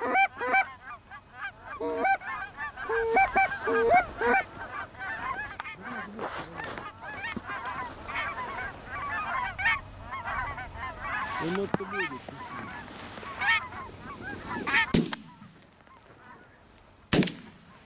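A flock of wild geese flying overhead, many birds honking and calling at once in a dense, overlapping chorus. The calling cuts off abruptly near the end, and a sharp click follows.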